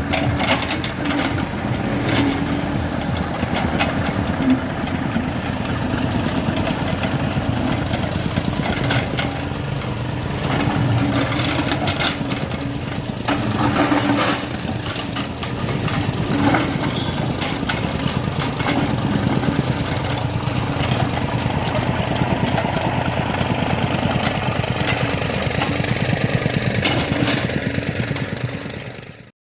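Excavator's diesel engine running steadily, with intermittent clanks and scrapes from the work; the sound fades out at the very end.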